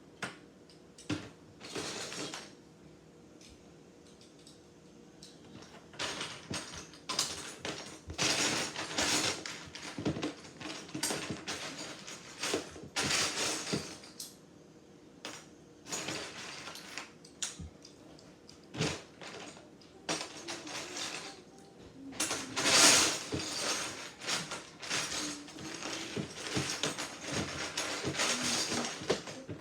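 Loose plastic Lego bricks clattering in bursts as hands rummage through a pile, with scattered sharp clicks of pieces being snapped together. It starts sparse and is busiest and loudest in the last third.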